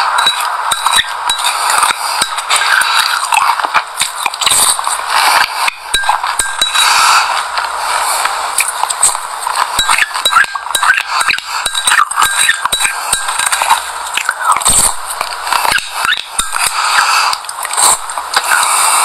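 A spoon clinks and scrapes against a glass bowl of sesame seeds mixed with yogurt and passion fruit, close to the microphone, alongside crunchy chewing of the seeds. It comes as a dense, unbroken run of small clicks and crackles.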